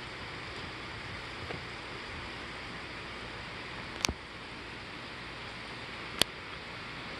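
Steady hiss of rain in a night thunderstorm, with two sharp clicks about two seconds apart.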